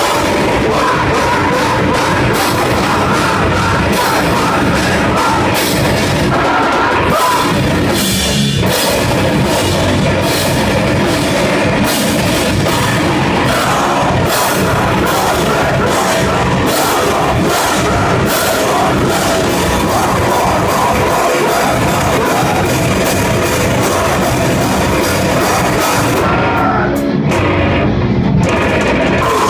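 Metal band playing live at full volume: distorted electric guitars over a pounding drum kit with cymbals. Near the end the cymbals let up for a couple of seconds.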